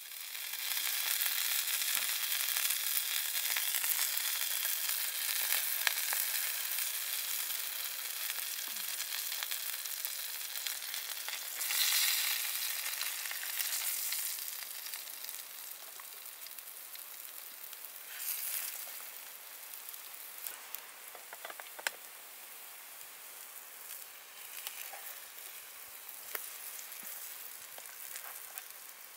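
Food frying in a pan on a camp stove: a steady sizzling hiss that swells louder about twelve seconds in, then gradually eases off.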